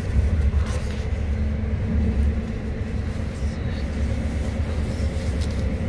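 Steady low rumble of a moving train heard from inside a passenger carriage, with a faint steady hum over it.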